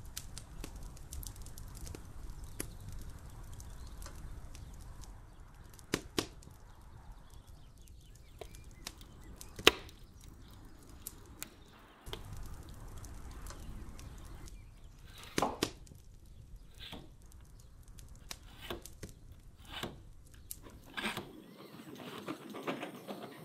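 A wood fire crackling, with sharp pops and cracks over a low rumble; the loudest crack comes just under ten seconds in. Near the end a steel kitchen knife is drawn a few times through a pull-through knife sharpener.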